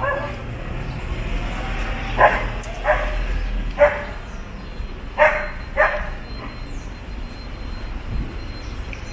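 A dog barking in short single barks, about five of them between two and six seconds in, over a low steady rumble of street noise.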